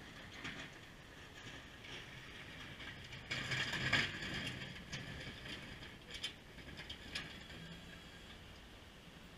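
Ford F-150 pickup with a Fisher half-ton plow passing close by, its steel blade scraping over the snowy pavement with the engine running low underneath. The sound is loudest about four seconds in as the truck goes by, then a few sharp clicks follow.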